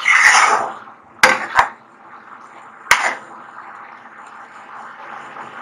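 A metal spoon stirring sticky sugar-syrup rice in a pan: a scraping swish at the start, then sharp clinks of the spoon against the pan, two in quick succession about a second in and one more near three seconds.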